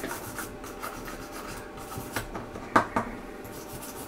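Small brush scrubbing rust off the Commodore 128's RF modulator circuit board, scratchy rubbing strokes. A few sharp clicks between about two and three seconds in, one of them the loudest sound here.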